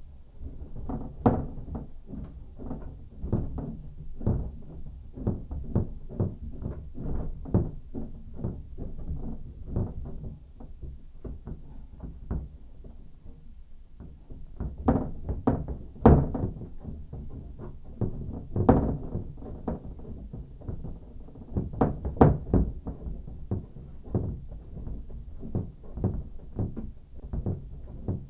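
Irregular knocks and thuds of hands and tools bumping the tub/shower surround and the shower valve and its pipes inside the wall while the valve is worked on through the access hole. The knocks come several times a second, with a few louder hits.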